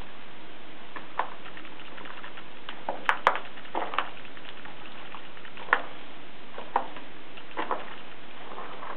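Water dripping in a mine gallery: about ten irregular drips and taps, some ringing briefly, over a steady hiss.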